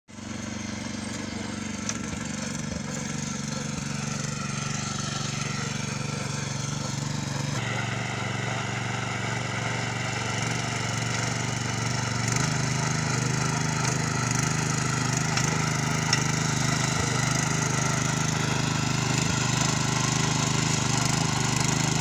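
Walk-behind mini tiller's small engine running steadily under load as its tines churn soil. The engine note steps up slightly a few seconds in and again about halfway, and the sound grows gradually louder.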